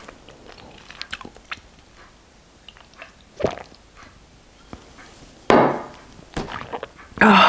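Close-miked sips and swallows from a glass: small wet clicks and gulps, then a short louder burst of noise about five and a half seconds in, as the drink ends.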